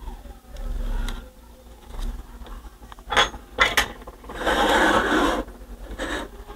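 Parts of a CD player's disc transport being handled while a replacement laser pickup is fitted: a few sharp clicks about three seconds in, then a scraping rub lasting about a second.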